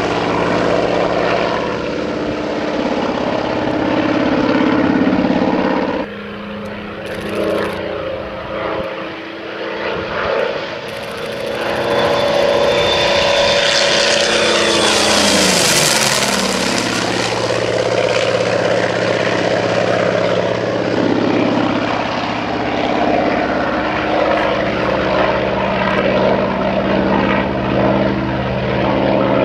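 Douglas AD-5W Skyraider's Wright R-3350 radial engine and propeller droning through a low flypast. The drone grows loudest about halfway through, and its pitch drops as the aircraft passes, then it runs on steady as it flies away.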